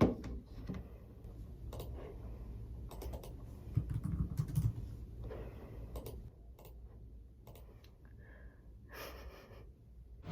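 Typing on a computer keyboard: irregular key clicks over a steady low hum, with one sharper, louder click right at the start.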